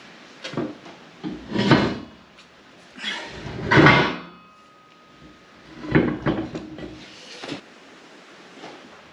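Heavy swage block clanking and scraping against its steel angle-iron stand as it is shifted and stood upright: a handful of separate metal knocks and scrapes, the loudest about four seconds in, followed by a short metallic ring.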